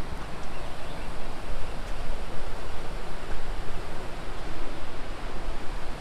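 Wind buffeting the microphone: a loud, even rushing noise with a deep rumble, its level wavering unsteadily.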